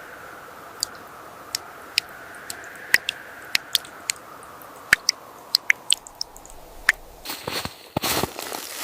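Wood fire crackling: irregular sharp pops over a steady hiss. From about seven seconds in, louder crunching and rustling come in.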